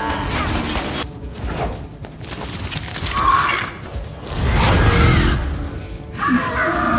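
Action-scene film soundtrack: music mixed with crashing and thudding sound effects, swelling loudest about halfway through.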